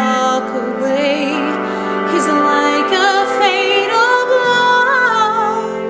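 A woman singing a slow musical-theatre ballad, with vibrato on held notes over a sustained instrumental accompaniment.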